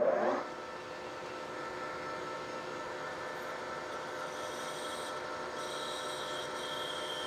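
Small metal lathe running with the spindle turning an acetal (Delrin-type) rod, a steady hum and whine of the motor and drive. About four seconds in, a faint high-pitched tone comes and goes as the parting tool starts cutting off the piece.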